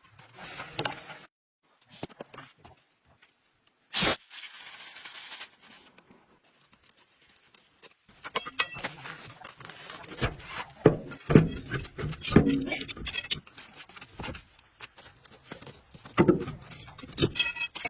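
Irregular clinks, knocks and scraping from hands working with metal tools and parts, with a short burst of hissing about four seconds in.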